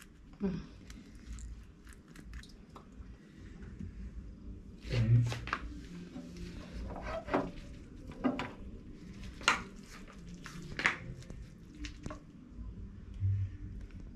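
Utensil sounds of a spoon working on a flat flour wrapper on a tiled counter: scattered light clicks and scrapes as sauce is spread and shredded vegetable filling is spooned on.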